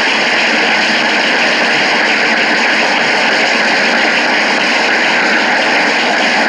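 Audience applauding and cheering, a steady even wash of noise as loud as the preaching.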